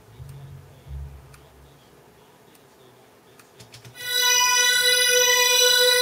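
Synthesizer music from FL Studio (the Sytrus synth) playing over studio speakers: faint low bass notes and light clicks at first, then about four seconds in a loud, steady held note with many overtones.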